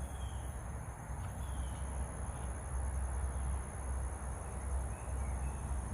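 Outdoor ambience: a steady low rumble and a thin steady high hum, with a few faint bird chirps.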